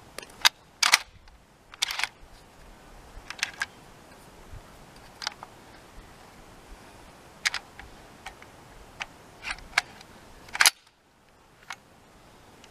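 Panzer AR-12 12-gauge semi-automatic shotgun's action being worked by hand: about a dozen sharp metallic clicks and clacks at uneven intervals, the loudest near the end. The gun is too dry to cycle on its own and needs oil.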